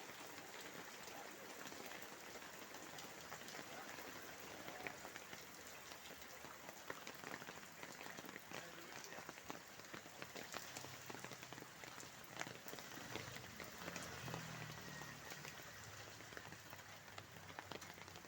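Steady rain falling, an even hiss with many separate drops ticking sharply.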